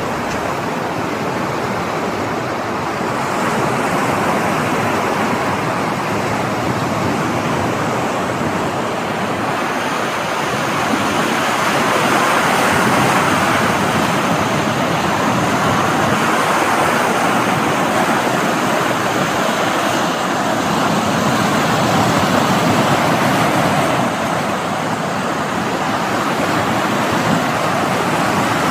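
Sea waves washing on a shore: a steady rush of surf that swells and eases slowly.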